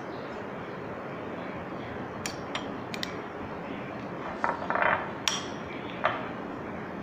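A few sharp clicks and clinks from a metal spoon in a glass bowl of filling, with a short scraping rustle about two thirds of the way in, over a steady background hiss.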